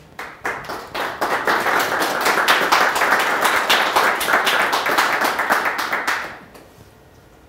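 An audience applauding: a few scattered claps, swelling to steady applause about a second in, then dying away a second or so before the end.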